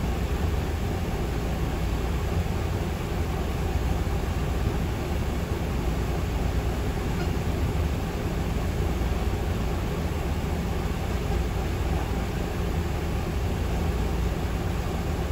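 Floodwater rushing steadily over river rocks, mixed with the low rumble of the excavator's diesel engine as it works.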